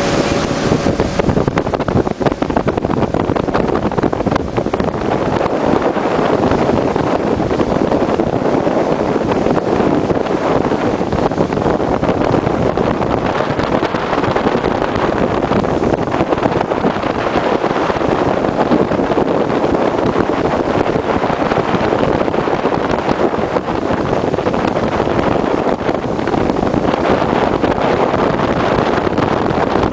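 Wind rushing and buffeting over the microphone of a motorboat under way, loud and steady, with the boat's engine and water noise beneath it.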